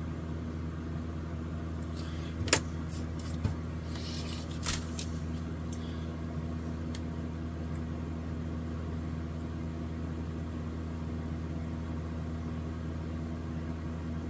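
Steady low hum, with a few light clicks and taps about two to five seconds in as wire and soldering iron are worked at a guitar pickguard's potentiometer terminals.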